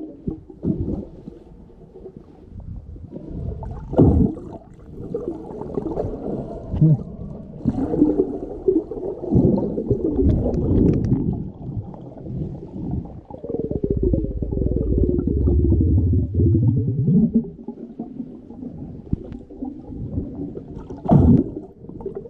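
Muffled underwater sloshing and gurgling of water moving around a submerged camera, with swooping low tones. There are sharp knocks about four seconds in and again near the end.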